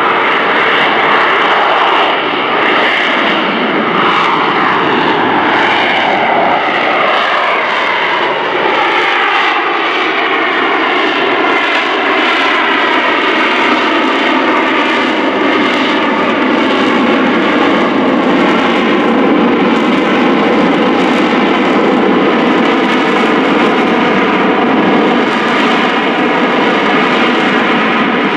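AV-8B Harrier II jet, its Rolls-Royce Pegasus turbofan running loud at high power. Its whine falls in pitch over the first ten seconds or so, then holds steady.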